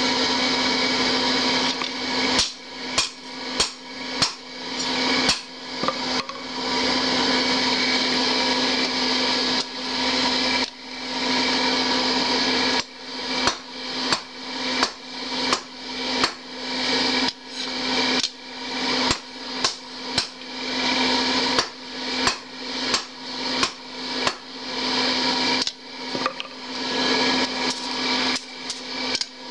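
Hand hammer striking a red-hot 52100 bearing-steel parang blade on a steel anvil: runs of sharp, ringing blows at about two a second, with pauses between the runs. A steady hum runs underneath.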